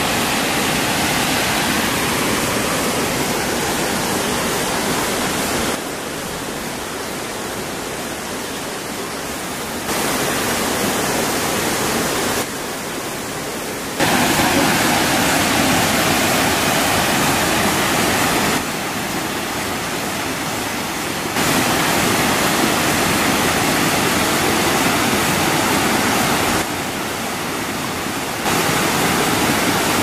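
Small waterfall cascading over rocks into a shallow pool: a steady rush of water, with sudden jumps up and down in loudness several times.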